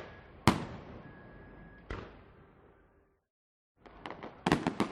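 Distant fireworks in a city: two booming bursts about a second and a half apart, each trailing off in a long echo. After a brief silence, a quick run of crackling pops starts near the end.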